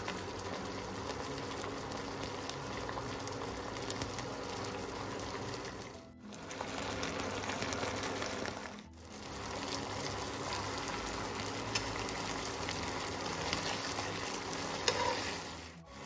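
Fish fillets simmering in a cream sauce in a frying pan, sizzling and bubbling steadily with a fine crackle. The sound drops out briefly twice.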